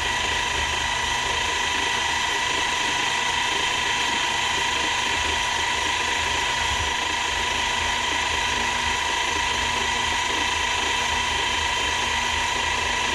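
Milling machine running with a steady high whine as its end mill is fed into a metal block, cutting to a set depth.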